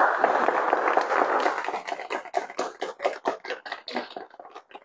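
A small audience applauding, with dense clapping at first that thins out into scattered single claps and dies away near the end.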